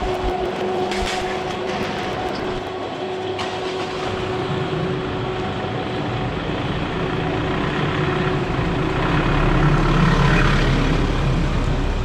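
An electric roller shutter door motor whines steadily as the door rolls up, over a pickup truck's engine running. From about nine seconds in, the engine rumbles louder as the pickup drives in slowly and passes close by.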